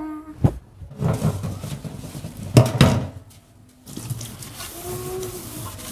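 Dishes clattering and clinking while being washed by hand at a sink, the loudest clinks about two and a half seconds in; then a softer steady hiss of a sponge scrubbing a plate.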